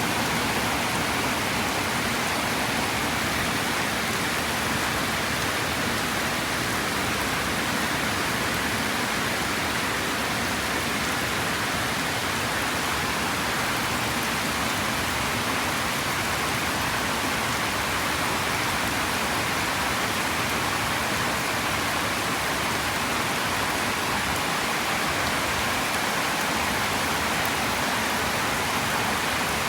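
Heavy rain falling steadily in a rainstorm, a dense even hiss of downpour beating on surfaces, with no thunder.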